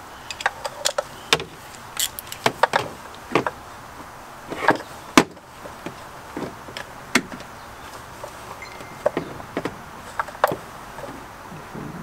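Irregular sharp metallic clicks and clinks of a socket, extension and ratchet being handled and fitted onto a bolt, with a few louder knocks among them.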